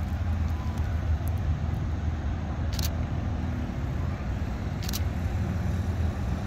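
Steady low hum of distant road traffic, with two brief sharp clicks about three and five seconds in.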